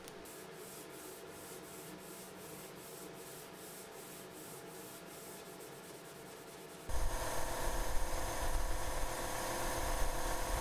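0000 steel wool loaded with paste wax rubbed over a walnut desktop in quick, even back-and-forth strokes, faint. About seven seconds in the sound turns suddenly louder, with a steady machine hum under the rubbing as the waxed top is buffed with a cloth.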